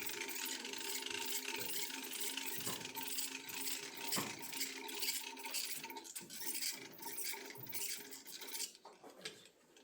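Small geared mechanism whirring with a steady rubbing noise, which dies away about nine seconds in, followed by a couple of clicks.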